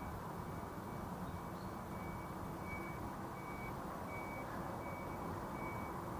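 Electronic warning beeper sounding a single high-pitched tone over and over, about one and a half beeps a second, clearer from about two seconds in, like a vehicle's reversing alarm. Steady street noise underneath.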